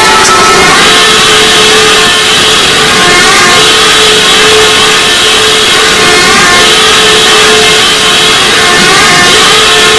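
Ear-rape style audio, deliberately distorted and played at the edge of clipping: a dense wall of harsh noise with a warbling pattern that repeats several times a second and a shrill band that breaks off and returns every few seconds.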